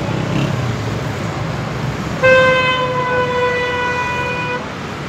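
A vehicle horn sounds one long steady note of a little over two seconds, starting about two seconds in, over a steady rush of background noise.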